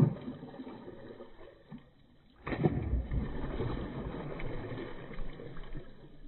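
A hooked red-bellied pacu thrashing at the surface of the water: a splash right at the start, then from about two and a half seconds in a longer spell of heavy splashing that slowly dies away.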